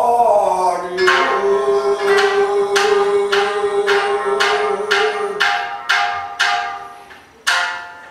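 A male rōkyoku singer's voice slides down at the end of a sung phrase and holds a long note. Under it, a shamisen struck with a plectrum plays sharp ringing notes about two a second, slowing to single strikes that ring out near the end.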